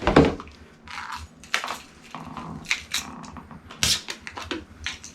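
Aluminium beer cans being handled and punched open to shotgun them: a string of separate sharp metallic clicks and crunches, about seven in all.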